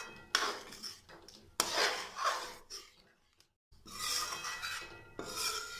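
A spoon stirring thick dal in a metal kadai: a few scraping, rubbing strokes of the spoon against the pan, with a brief silent break in the middle.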